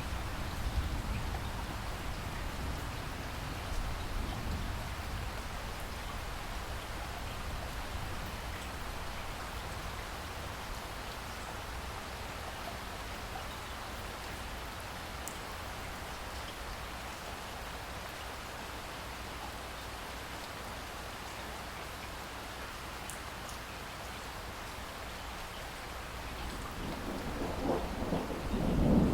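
Steady rain with thunder. A low rumble fades over the first few seconds, then a new peal builds and grows louder near the end.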